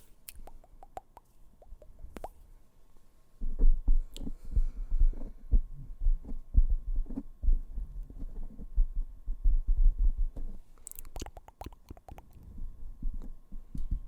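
Fingertips tapping on a microphone, heard as a dense, irregular run of low, booming thumps that starts a few seconds in and eases off near the end. A few faint clicks come before the tapping starts.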